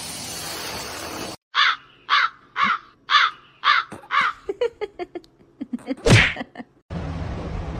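An animal's harsh calls, six in a row about half a second apart, then softer short chirps and one louder call about six seconds in.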